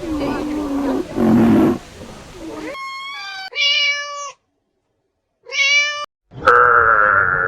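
Animal calls: a few rough, bleat-like calls for the first few seconds, then four separate high, drawn-out meow-like cries with short silences between them, the last one the loudest and longest.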